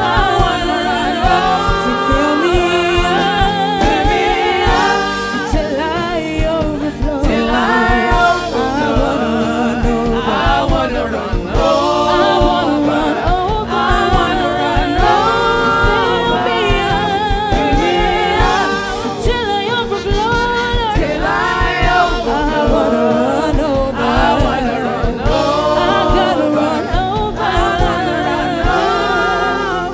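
Gospel music: voices singing with vibrato over instrumental backing with steady low bass notes.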